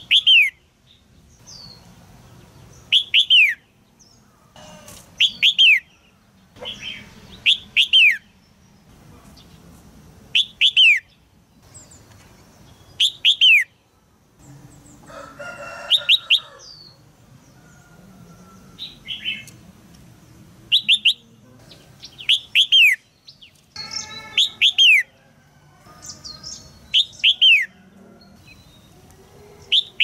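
Female red-whiskered bulbul calling 'jiak' in a cage: sharp notes that slide down in pitch, two or three in quick succession, repeated every two to three seconds. These calls are used to prompt a young male to sing.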